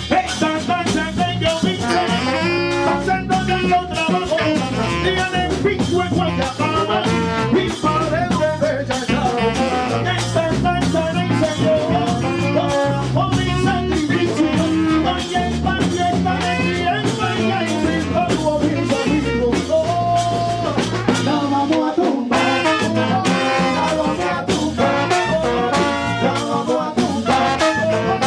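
A live orchestra playing, led by a brass section of trumpets and trombones over bass and percussion with a steady beat.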